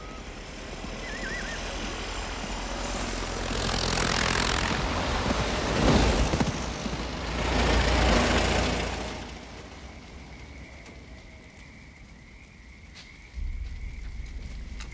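A convoy of old motor cars and trucks drives past one after another, the engine and tyre noise swelling to three loud passes about four, six and eight seconds in, then fading away. A thin steady high tone and a low rumble remain near the end.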